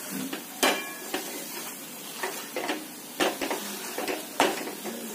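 Flat metal spatula scraping and knocking against a metal kadai as thick besan roasting in ghee is stirred, with irregular sharp clanks over a low sizzle. The ghee has begun to separate from the roasting gram flour.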